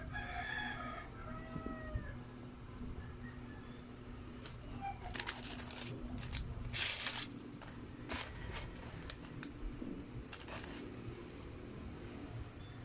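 Paper wrapper and a small condiment packet crinkled and rustled by hands close to an ASMR microphone, loudest from about five to seven and a half seconds in, with a few shorter rustles after. A brief high, squeaky gliding sound comes at the start.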